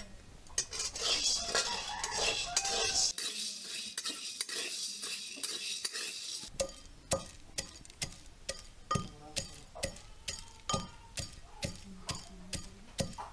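Metal spatula stirring and scraping small seeds as they dry-roast in a steel wok, a rattling hiss. About six seconds in it gives way to a pestle pounding in a mortar, steady thumps a little under two a second, grinding the roasted ingredients.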